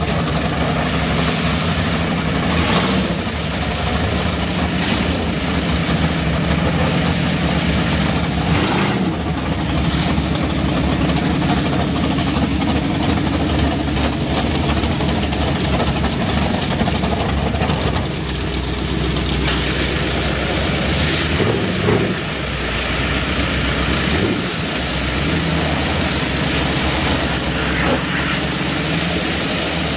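Engines idling steadily under the constant hiss of a pressure-washer jet blasting caked mud off a mud truck's body and tires.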